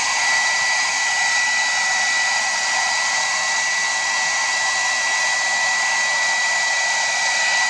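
Small handheld hairdryer blowing steadily: a rush of air with a constant fan-motor whine held at one pitch.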